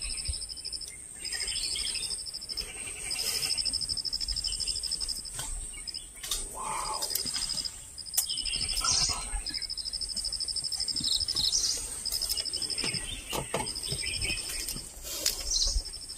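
Forest insects calling: a high, pulsing trill that repeats in bursts of about one to two seconds, over a steady higher insect hiss, with a few bird chirps.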